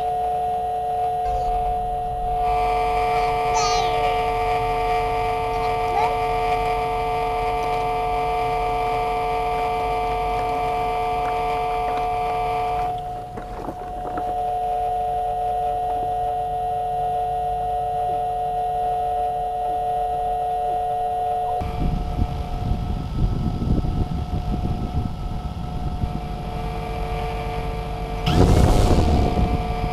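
DJI Phantom quadcopter's motors and propellers whining on several steady high tones, dipping briefly about thirteen seconds in. From about twenty-two seconds in, a low wind rumble joins the whine and swells loudly near the end.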